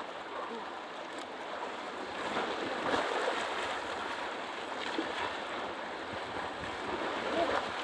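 Choppy sea surf: waves breaking and washing, a steady rush with a swell of louder surge about three seconds in.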